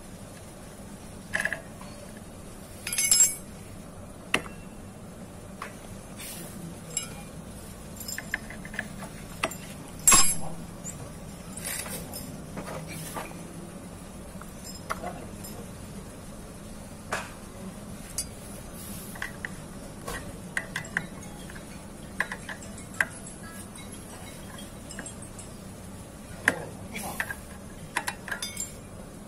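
Metal tools and clutch parts clinking and knocking on a Honda EX5 Dream's clutch assembly as a socket wrench works the clutch bolts and the automatic centrifugal clutch is handled. The clinks are scattered and irregular, with louder clanks about three seconds in and again about ten seconds in, and a run of quick clicks near the end.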